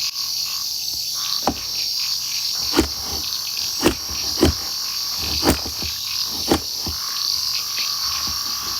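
Frogs giving short, sharp calls at about one a second, over a steady high-pitched chirring of insects.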